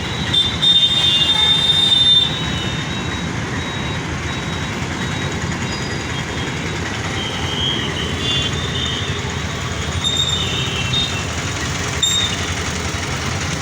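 Dense, steady noise of road traffic and construction machinery, a little louder in the first two seconds, with short high-pitched tones now and then.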